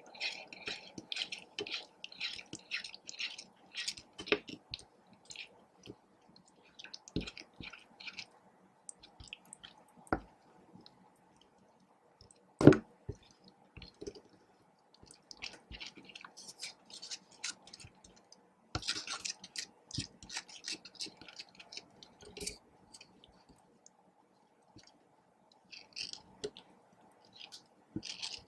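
Slime being stirred and squished, giving runs of short, wet, sticky clicks in bursts, with one sharp knock about twelve and a half seconds in.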